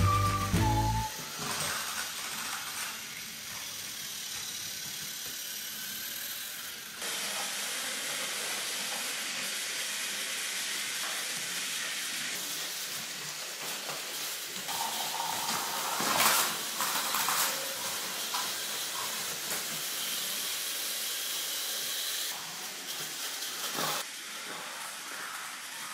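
Battery-powered Plarail toy trains running on plastic track: a steady, high whirring hiss of their small motors and wheels, with a few clicks and rattles partway through and near the end.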